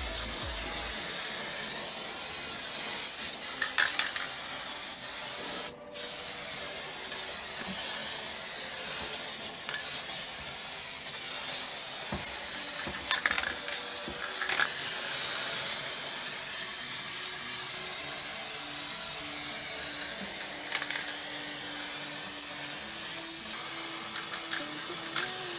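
Aerosol spray paint can hissing as paint is sprayed on in a long steady pass, with a brief stop about six seconds in and a few light clicks.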